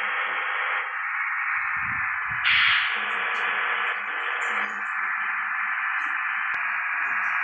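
Steady, narrow-band hiss like radio static, with a brief louder burst about two and a half seconds in.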